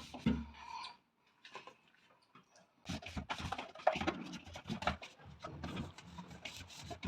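Scattered light clicks and knocks of objects being handled. They stop for about two seconds after the first second, then come thick and fast.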